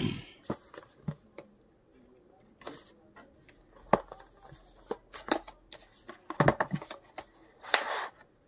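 A cardboard product box being handled on a table: scattered clicks and knocks of the box and a utility knife, then a longer scraping slide near the end as the inner tray is pushed out of its cardboard sleeve.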